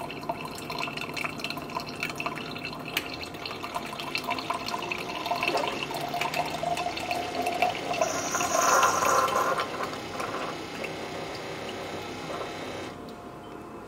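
Keurig single-serve coffee maker brewing, a stream of coffee pouring into a glass mason jar. The sound grows louder midway, then stops about a second before the end.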